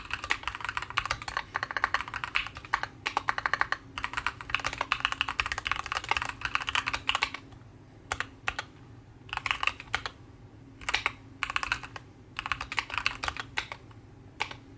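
Typing on a Keychron Q11 split mechanical keyboard with Gateron Oilking linear switches and ABS single-shot keycaps. There is a fast, continuous run of keystrokes for about seven seconds, then short bursts of keys with pauses between. The bottom-out clack is fairly loud, giving a light, knocking typing sound.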